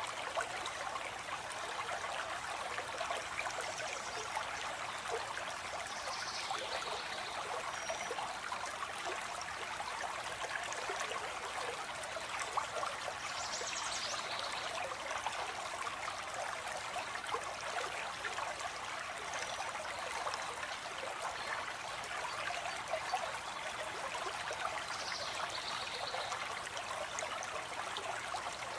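Stream water flowing steadily over rocks, with a few short, faint, high bird calls now and then.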